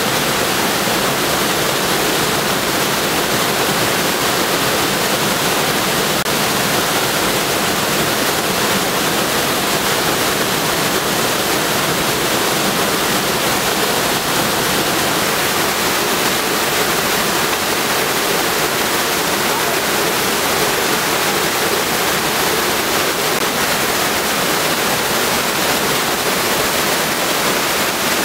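Floodwater gushing out of a karst cave mouth and cascading down a rocky channel: a steady, loud rush of white water from a cave spring in flood after heavy rain.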